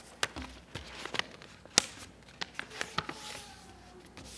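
A sheet of paper being handled and refolded by hand, crinkling and creasing in a scatter of sharp crackles and taps, the loudest a little under two seconds in.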